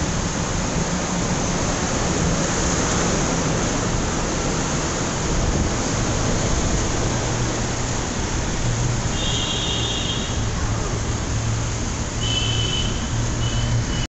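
Steady road-traffic noise from a motorbike ride inside a road tunnel, with an engine hum underneath. Vehicle horns sound about nine seconds in and again near the end.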